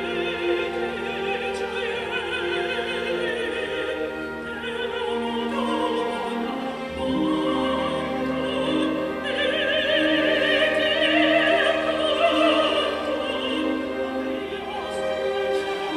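Operatic soprano singing with a wide vibrato over an orchestra with strings, the voice swelling louder and higher about nine seconds in.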